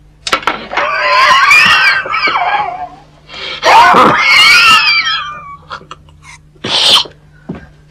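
A man's violent sneezing fit: two long, wavering, high-pitched strained cries of about two seconds each, then a short sharp burst about seven seconds in. It is a nervous attack that comes on him when he plays before an audience.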